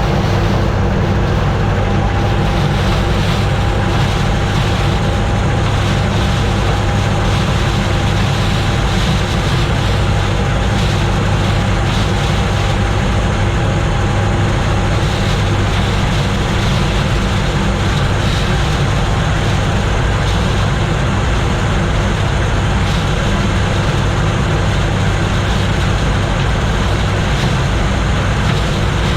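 Gleaner combine harvester running steadily while harvesting corn, a constant engine drone with a thin steady whine over it.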